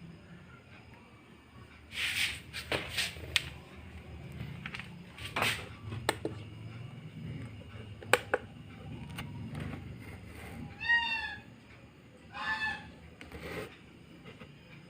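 Two short, pitched animal cries near the end, each arching up and down, after a scatter of sharp knocks and clicks.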